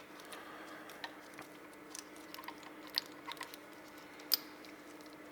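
Faint scattered clicks and taps of metal engine parts being handled as the F650GS magnet-side cover is fitted onto its gasket, over a steady low hum.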